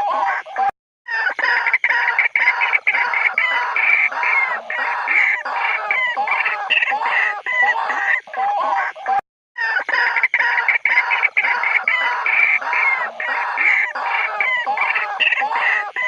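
White-breasted waterhens giving their territorial call: a dense run of overlapping, repeated calls. It cuts out briefly twice, about a second in and about nine seconds in.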